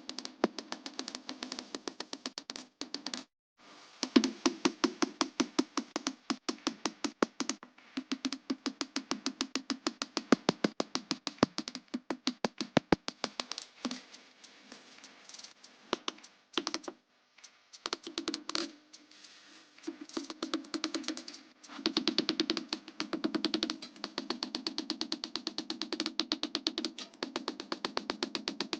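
Rapid hammer strikes on steel leaf-spring stock, about five a second, in runs broken by short pauses.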